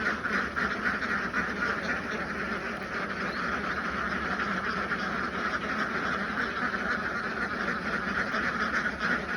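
A flock of ducks quacking continuously, many calls overlapping into a steady chatter.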